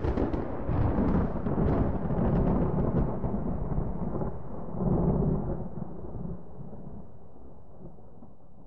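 Thunder rumbling: a long rolling roll with crackles on top that swells again about five seconds in, then slowly dies away.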